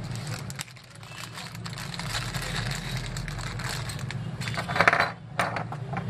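Small plastic bag crinkling as it is opened and emptied, and banana plugs clattering onto the table, loudest about five seconds in. A steady low hum runs underneath.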